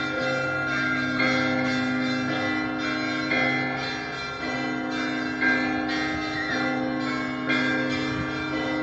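Church bells ringing: several bells struck in turn, a new strike about every second, their tones ringing on and overlapping.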